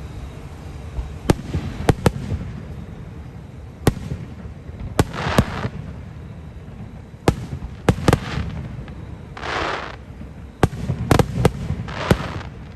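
Aerial fireworks going off in an irregular series of sharp bangs, some a fraction of a second apart. Several bursts are followed by a hissing rush, the longest about nine to ten seconds in, over a low rumble.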